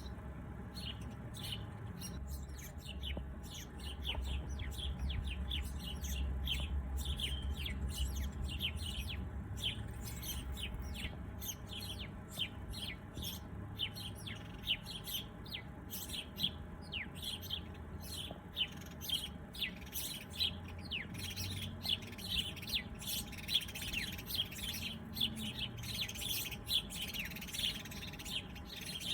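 Many small birds chirping, with quick, sharp notes coming thick and fast and growing busier in the second half, over a steady low rumble.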